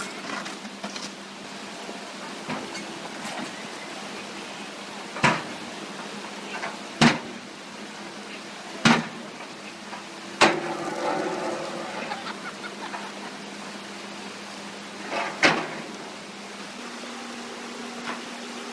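Five sharp knocks at uneven intervals, over a steady hum and a constant rushing noise.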